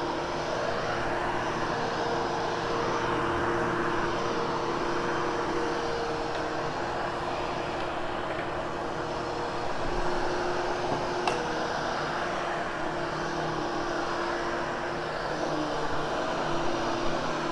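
Hoover HushTone vacuum cleaner running steadily over carpet: an even motor hum and airflow rush with a couple of steady motor tones.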